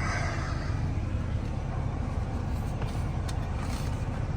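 Semi truck's diesel engine running with a steady low rumble, with a couple of light clicks about three seconds in.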